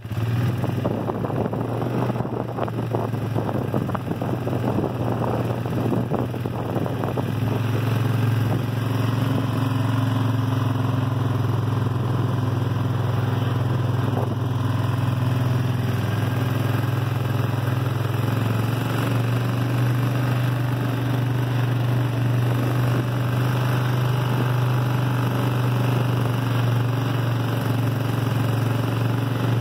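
Engine of a small vehicle running at a steady, unchanging pitch while travelling slowly, with crackling and rattling noise over it for the first several seconds.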